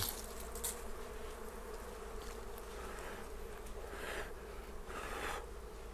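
A swarm of dwarf honeybees (Apis florea) buzzing around their disturbed nest, a steady hum. Two brief rustles come about four and five seconds in.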